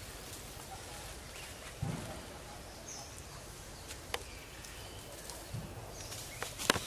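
Outdoor woodland ambience, a steady background hiss, with a soft thump about two seconds in, a short high chirp near three seconds, a sharp click near four seconds and a knock just before the end.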